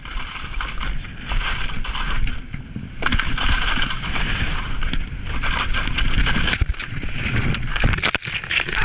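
Wind rushing over the microphone of a skier's point-of-view camera on a fast descent, mixed with skis scraping over hard, crusty snow. A few sharp knocks come near the end.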